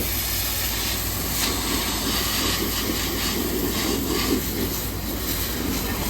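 Pressure-washer jet spraying water, a steady hiss, over the constant low hum of an engine or pump running.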